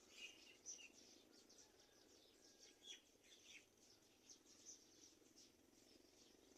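Faint bird chirps: many short, quick high notes scattered throughout, over a low steady hum.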